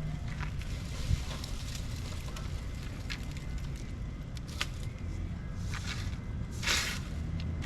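Steady low rumble with scattered light clicks and knocks, and a short louder rustle near the end.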